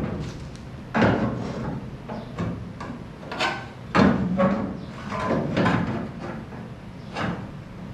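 A string of irregular knocks and clunks from a thick grooved metal plate being handled and set down, the loudest about four seconds in.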